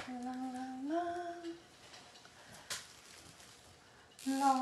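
A person humming a few notes, the pitch stepping up about a second in. A pause follows with one light click, then the humming starts again near the end.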